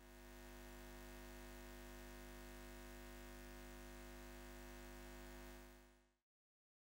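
Very faint steady electrical hum, a low buzz with a stack of evenly spaced overtones. It fades in at the start and fades out about six seconds in.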